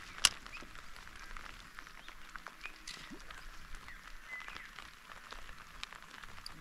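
Rain falling on the dam's surface, a fine hiss of many small drops, with a few short bird chirps. A single sharp click comes about a quarter-second in.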